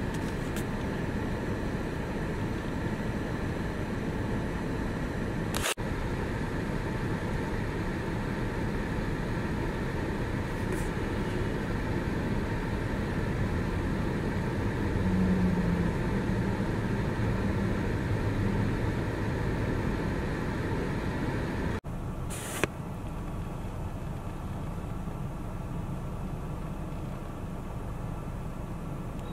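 Steady city street traffic noise, a continuous hum of passing cars and engines, briefly broken twice by sharp clicks where the shots change.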